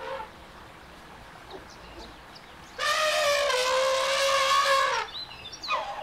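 Elephant trumpeting: one long call of about two seconds starting about three seconds in, dipping slightly in pitch and then holding steady. Another call starts right at the end.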